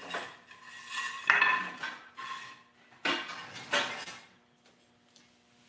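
Metal parts and tools clinking and clattering as they are moved and set down, several sharp knocks with a short ring, the loudest about a second in and again about three seconds in, then quiet.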